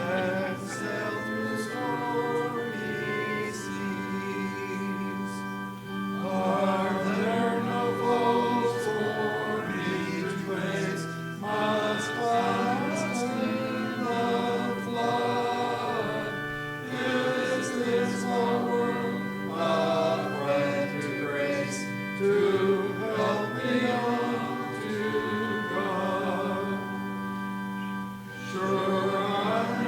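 Congregation singing a hymn together over steady held chords from an organ or keyboard, in phrases with brief breaths between them.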